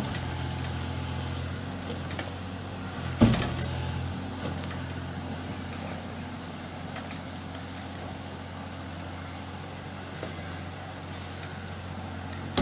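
Mini excavator engine running steadily while it works on a concrete wall, with one sharp knock about three seconds in.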